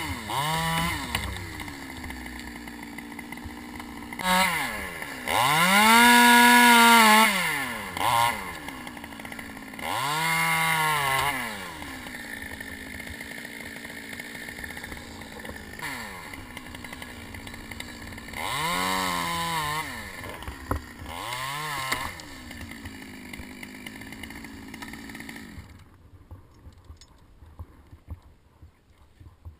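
Two-stroke top-handle chainsaw revving up several times, with its pitch rising and falling, and idling in between. It cuts off suddenly near the end.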